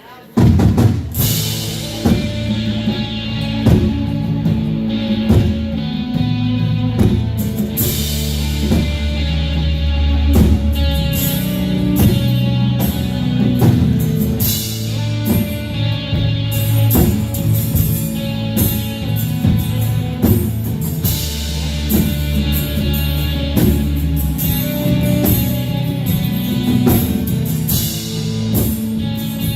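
Live worship band starts up suddenly about half a second in and plays a loud instrumental passage with a steady drum beat.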